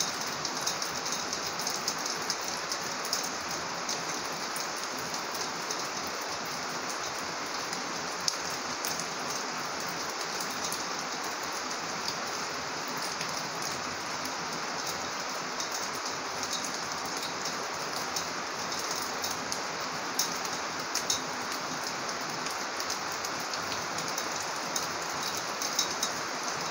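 Steady rain falling, with many sharp little ticks of single drops striking close by.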